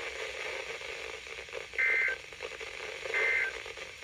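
Emergency Alert System end-of-message data bursts on NOAA Weather Radio: two short, loud, warbling two-tone digital chirps about a second and a half apart, over steady radio hiss. They signal the end of the alert message.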